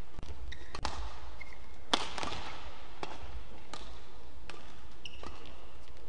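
Badminton rally: rackets hitting the shuttlecock in a string of sharp cracks, about one every three-quarters of a second, the hardest about two seconds in. Shoes give short squeaks on the court mat between shots.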